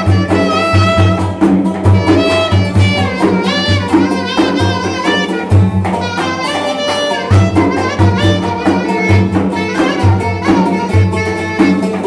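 Live Turkish folk dance tune (oyun havası): a clarinet plays an ornamented, trilling melody over a pulsing beat on a large double-headed drum, with a plucked cümbüş. The drum beat drops out briefly about halfway through, then returns.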